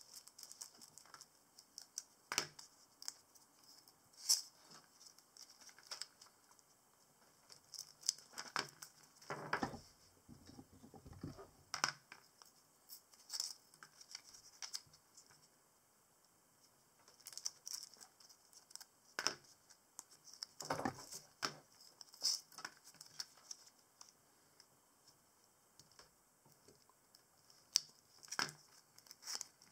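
Stiff birch bark squares being handled and worked on paper: irregular crinkling, scraping and small taps, with a couple of quieter stretches.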